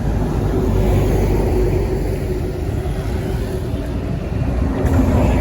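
Tour bus driving past on the road: engine and tyre noise, loud and steady, with a faint steady engine tone over it.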